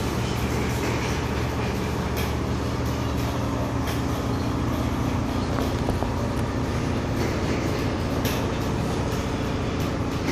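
A steady low mechanical hum and rumble that holds level throughout, with a few faint clicks over it.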